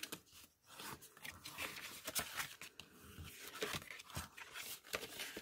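Bone folder rubbing along the score lines of cardstock while the sheet is folded and creased into pockets: a run of faint, irregular scraping and rustling strokes.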